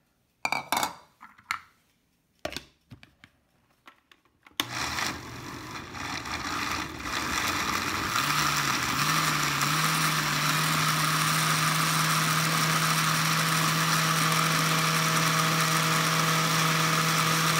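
A few knocks, then a countertop blender starts about four and a half seconds in and runs steadily, puréeing roasted chile peppers and green tomatoes into a red sauce. Its motor note steps up about eight seconds in, and it stops right at the end.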